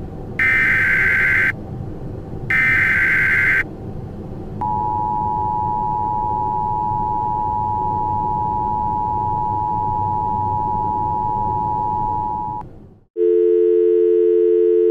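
Emergency Alert System mock audio. Two roughly one-second bursts of the screeching SAME header data signal sound over a low rumbling noise, followed by the EAS two-tone attention signal, a steady beep lasting about eight seconds. After it cuts off there is a brief silence, then a lower, steady two-note tone starts near the end.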